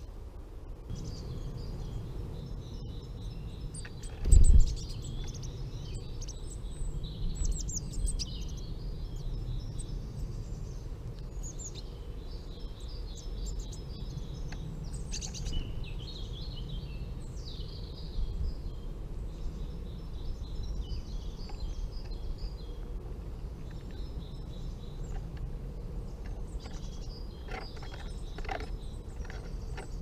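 Small woodland birds chirping and calling, many short high notes throughout, over a steady low rumble. A single loud, dull thump comes about four seconds in.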